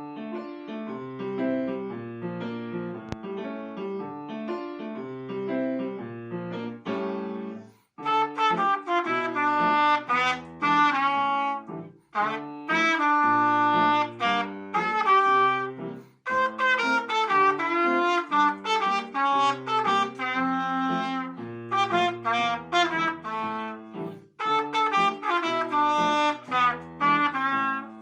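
Instrumental music: a soft accompaniment of chords over a bass line, joined about eight seconds in by a louder lead melody.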